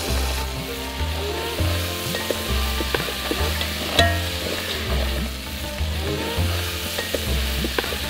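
Crab pieces in masala being stirred with a ladle in an aluminium pot, with the ladle knocking sharply against the pot about four seconds in. Background music with a stepping bass line runs underneath.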